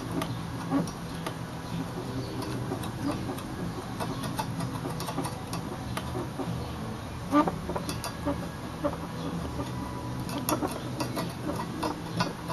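Hands handling a bent steel exhaust tube against the header flange: scattered light clicks and scratches, with a sharper knock about seven seconds in, over a steady low hum.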